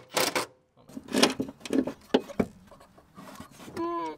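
Metal car suspension parts being handled by hand: scattered knocks, clicks and rubbing as a rear strut, coil spring and control arm are worked loose, with a brief pitched squeak near the end.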